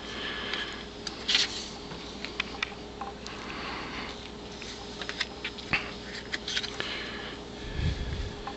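Postcards being handled: scattered paper rustles and small clicks over a faint steady hum, with a low thump near the end.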